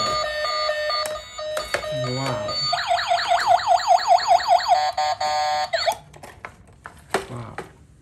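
Toy police car's electronic sound effects: steady beeping tones, then about three seconds in a fast electronic siren warble of about five cycles a second that cuts off near six seconds, followed by light clicks of plastic toys being handled.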